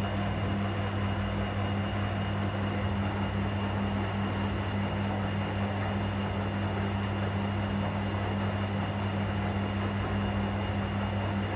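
Arielli AWM-7128N washing machine running its DrumClean 90°C drum-cleaning cycle: a steady, even motor hum with no breaks.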